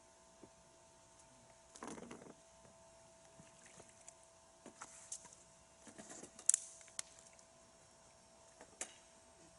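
Scattered light clicks and knocks with two short bursts of rustling, the sharpest click about six and a half seconds in, over a faint steady hum.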